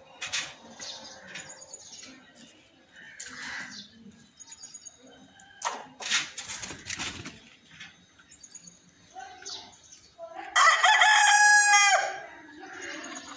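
Aseel rooster crowing once near the end, a loud call of about a second and a half, with small birds chirping faintly before it.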